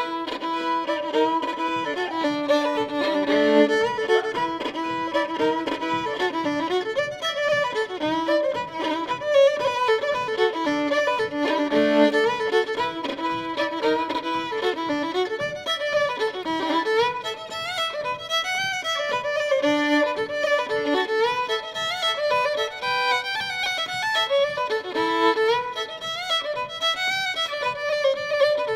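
Background music: an instrumental tune with a quick melody of short, fast-changing notes.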